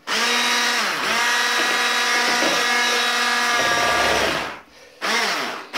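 Electric hand mixer with twin beaters whipping powdered whipped-cream mix, its motor whining steadily with a brief dip in pitch about a second in. The motor runs only while its button is held down by hand: it cuts out about four and a half seconds in, runs again for half a second, and stops again near the end.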